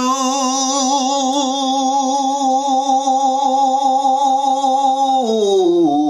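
A man making a long horn-like call with his mouth through cupped hands, held on one wavering note for about five seconds, then dropping lower in pitch near the end.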